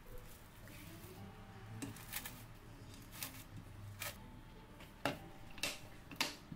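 Faint crinkling and rustling of plastic cling wrap being stretched over a stainless steel pot, with a scattering of short, sharp clicks.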